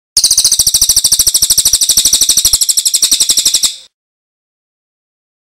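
Bird call recording: a loud, rapid, high-pitched chirping trill of evenly repeated notes, more than a dozen a second, lasting about three and a half seconds and cutting off abruptly.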